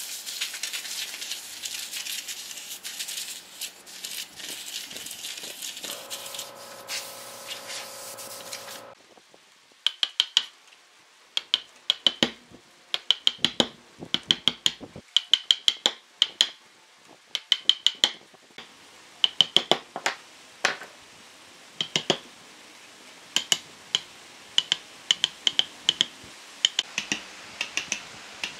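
A hand tool scraping and gouging wood out of a narrow groove in a log. From about a third of the way in, a chisel is driven into the slot with a wooden mallet: sharp knocks with a ringing tone, in quick runs of two to four, repeated over and over.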